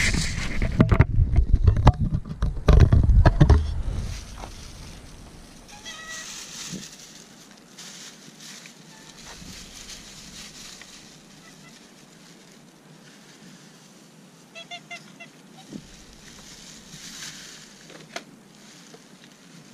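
Ducks quacking by the river: a short call about six seconds in and a quick run of about five quacks about fifteen seconds in. For the first four seconds a heavy low rumble on the microphone is the loudest sound.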